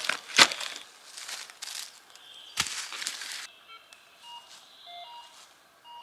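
Shovel blade chopping into leaf litter and soil a few times, the sharpest strikes about half a second and two and a half seconds in. From about halfway on, a metal detector gives short, quiet beeps at a couple of pitches as it picks up buried metal.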